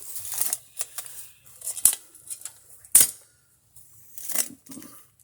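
Hand digging in dirt for a footer hole: a digging tool scraping into the soil, with sharp strikes about two and three seconds in.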